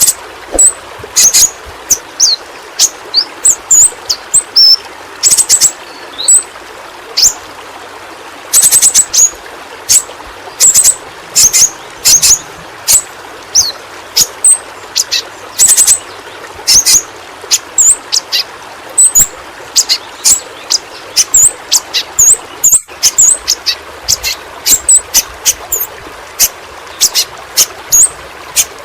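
Pentis pelangi (yellow-rumped flowerpecker) calling: a continuous run of short, sharp, high-pitched chirps and flicked notes, several a second, with occasional quick rattling clusters.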